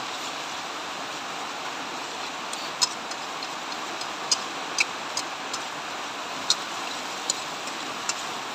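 Metal spatula clinking and scraping against a wok while shredded cabbage and carrot are stir-fried. Several sharp clinks at uneven intervals, mostly in the second half, over a steady hiss.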